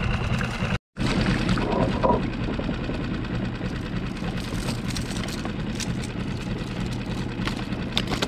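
Small outboard motor running steadily at trolling speed, a continuous low hum. The sound cuts out completely for an instant about a second in.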